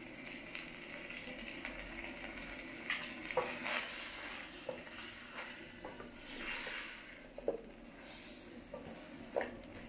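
Food sizzling in a hot pan while being stirred, with a few short clinks and knocks of the utensil against the pan.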